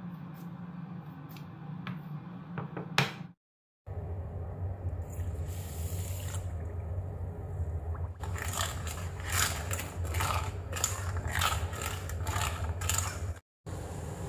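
A metal spoon stirring and scraping around a stainless saucepan of palm sugar and water, in repeated strokes of about two to three a second, to dissolve the sugar for syrup. Before it, sugar is spooned into the pan, with one sharp clink of the spoon about three seconds in.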